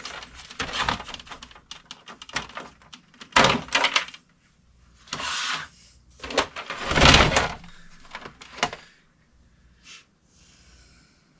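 Handling noise from an all-in-one computer being tilted and turned over on a desk: irregular knocks, bumps and scraping of its casing, loudest about three and a half and seven seconds in.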